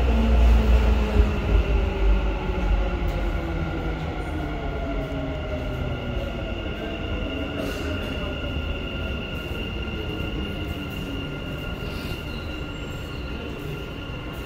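Dubai Metro train slowing down: the motor whine slides down in pitch while the heavy low rumble fades, with steady high-pitched whines held above it.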